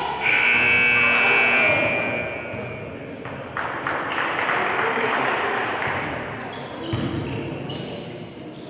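Basketball scoreboard buzzer sounding once for about two seconds, then a basketball bouncing on the court.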